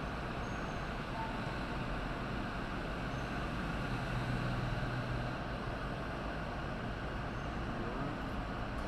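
Steady low engine rumble with a droning hum aboard a car ferry, swelling a little about halfway through.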